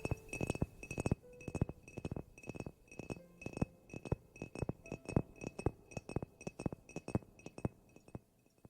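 Small, sharp clinking taps on a hard object, in a rapid, uneven run of about four a second, stopping near the end.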